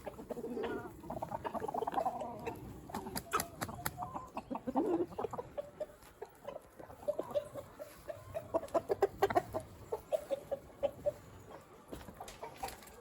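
Free-range chickens clucking, many short calls overlapping, with sharp clicks and taps scattered among them.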